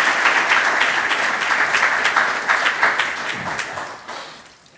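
Congregation applauding in a church sanctuary, the clapping thinning out and dying away near the end.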